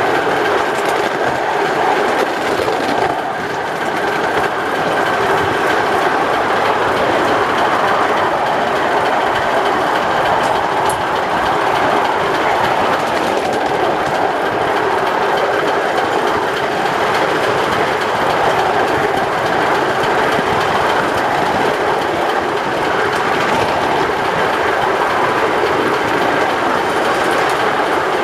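A 5-inch gauge live-steam model of a Stirling Single locomotive running along the track, heard from the riding truck close behind it: a steady running noise from the engine and the wheels on the rails.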